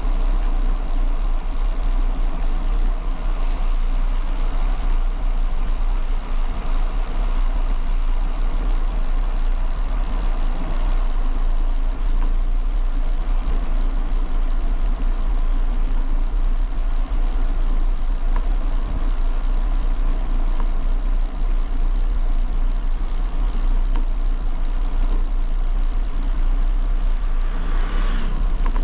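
Wind buffeting the microphone of a handlebar-mounted GoPro HERO11, its wind reduction switched off, as the bicycle rolls along a concrete path, with tyre and road noise under a steady deep rumble. A short rush of higher noise comes near the end.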